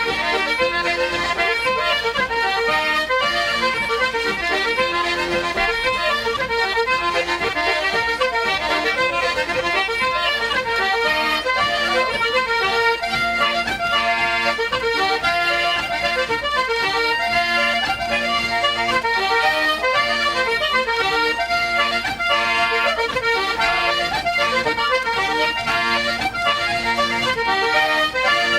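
Instrumental Irish traditional music, a lively run of quickly changing notes at a steady level.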